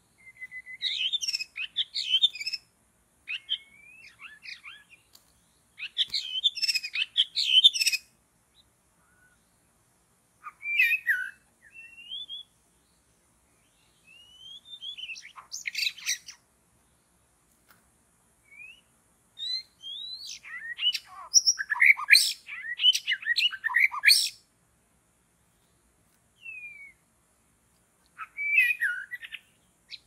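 White-rumped shama song: bursts of varied, quickly changing whistles and chirps a second or two long, broken by short pauses, with the longest, busiest run about twenty seconds in.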